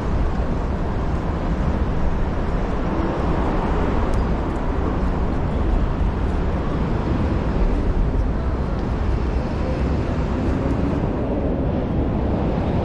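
Steady city street noise of road traffic, a continuous low rumble with no single event standing out.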